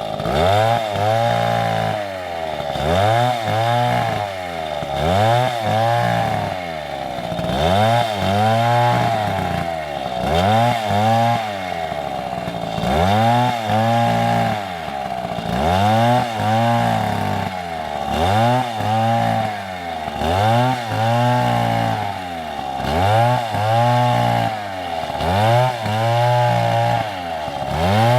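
Stihl two-stroke chainsaw engine revving up and falling back again and again, in pairs of swells about every two and a half seconds.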